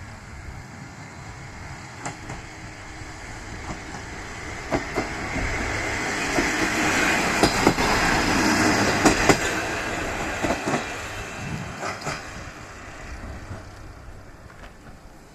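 Diesel railcar passing the crossing. Its engine and rolling noise swell to a peak about eight seconds in and then fade away, while the wheels clack over rail joints in quick pairs.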